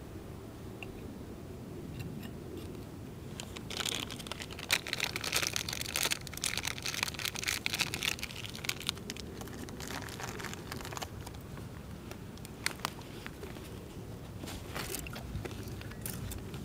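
Rustling and crinkling of kit being handled and rummaged through, with a dense run of crackly clicks from about four to nine seconds in and scattered clicks after.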